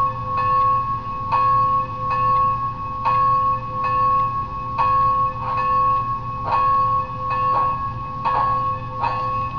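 Model train's sound-system bell ringing steadily, a clang about every three-quarters of a second, over a low steady hum.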